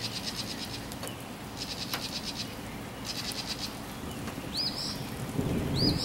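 Wild songbirds calling: several rapid, buzzy high trills and a few short rising chirps. A low rumble of thunder swells near the end.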